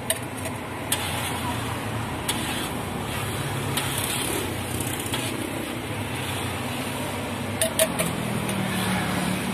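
Wire mesh strainer clicking against the rim of an enamel bowl and the wok as fried batter crumbs are skimmed from the oil and tapped out: a few sharp taps, two in quick succession near the end. A steady low rumble of street background runs underneath.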